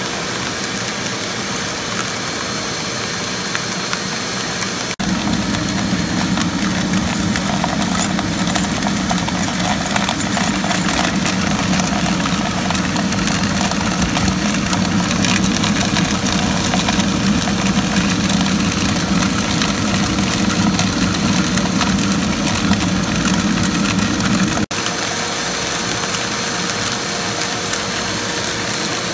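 Homemade air-column aspirator running steadily, its suction motor drawing air up the column with a constant hum, while cracked black walnut pieces rattle through and the lighter shell fragments are sucked away from the nut meats. About five seconds in the sound turns deeper and a little louder, and it shifts back near the end.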